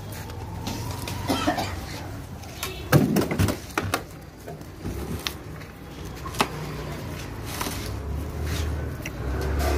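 Workshop handling noise from stainless steel tandoors being wrapped in plastic film and packed: scattered knocks, clicks and rustles, with a loud cluster of sounds about three seconds in. A low rumble swells near the end.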